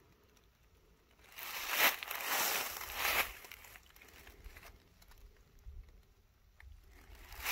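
Footsteps of a person walking outdoors: about three steps starting a second and a half in, a pause, then more steps near the end.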